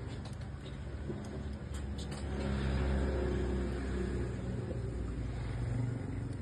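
A motor vehicle's engine running close by, a low rumble that swells about two seconds in and holds until near the end. Light clinks of a spoon and fork against a soup bowl in the first couple of seconds.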